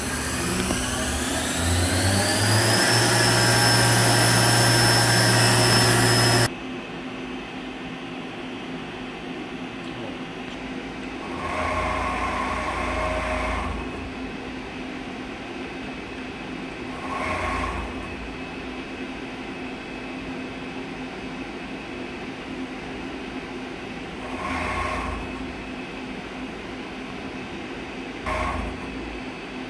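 Fadal 914-15 CNC vertical machining center running: a motor spins up with a rising whine for about three seconds, holds steady, then cuts off suddenly about six seconds in. The machine then hums steadily, with four short whirs of one to two seconds each.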